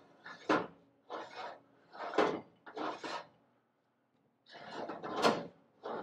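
A VW Beetle door's hand-made square-tube steel hinge scraping and clunking as the door is worked on it: four short scraping strokes, a pause, then a louder, longer scrape about four and a half seconds in.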